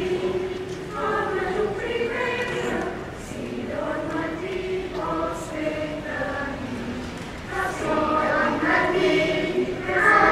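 Mixed choir of adults and children singing a Catalan caramelles song in phrases with short breaks between them, swelling louder near the end.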